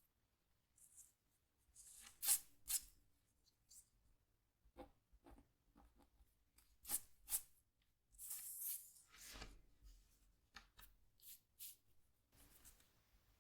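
Scratch tool scraping the coating off a scratchboard in short separate strokes, faint, with a few sharper pairs of strokes and one longer scrape about two-thirds of the way through.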